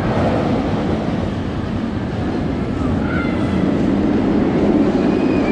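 Steel inverted roller coaster train rumbling along its track out of view, growing louder in the second half as it comes nearer.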